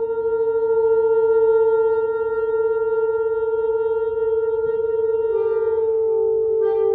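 Saxophones and French horn holding long sustained notes together. The main note is steady, and a second, slightly lower note joins about five seconds in.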